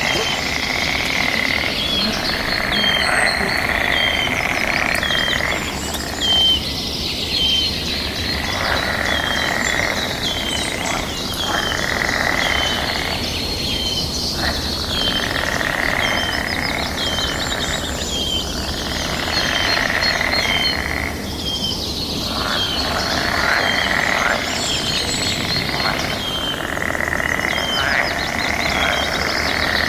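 A chorus of frogs calling, dense and continuous with brief lulls every few seconds. A short high note repeats over and over on top, with some bird chirps.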